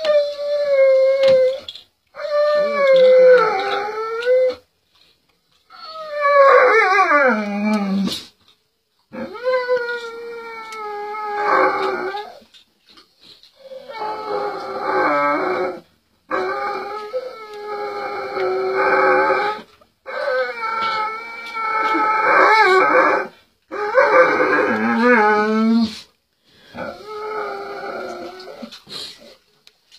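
A dog howling and crying in nine long, wavering wails with short breaks between them; the third wail slides steeply down in pitch. It is howling over a second, motionless dog lying beside it, which the owner takes for a companion that has died.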